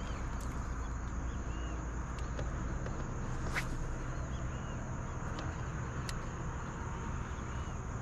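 Steady outdoor ambience: a constant high insect drone with small repeated bird chirps over a low rumble, and a few brief clicks.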